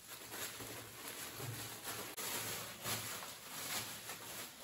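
Clear plastic wrapping crinkling and rustling in uneven bursts as it is pulled off a new desk chair, with a few soft low thuds.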